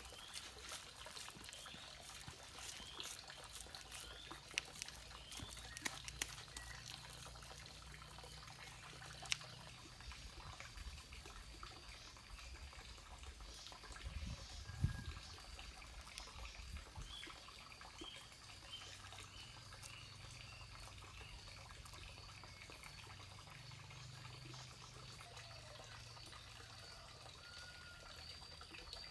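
Faint, wet sounds of hands patting and smoothing wet clay, with small dabs and dribbles of water and a few sharper taps. A thin, high chirping runs in the background.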